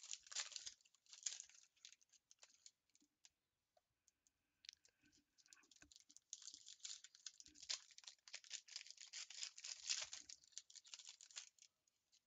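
Trading-card pack wrappers crinkling and being torn open, as a faint fine crackle in two spells: briefly at the start, then again from about six seconds in until near the end.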